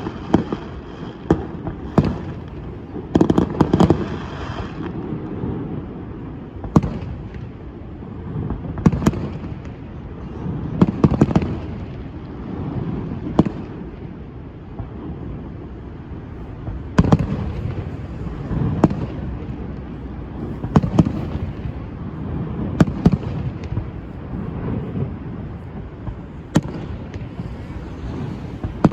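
Aerial fireworks shells bursting: sharp bangs and cracks at irregular intervals, several in quick clusters (about three seconds in, around eleven seconds, and again from seventeen to twenty-three seconds), over a steady low rumble.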